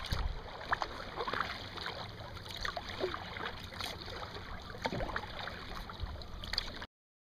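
Sea kayak paddling on calm water: paddle blades dipping and dripping, with small splashes and water trickling against the hull. It cuts off suddenly near the end.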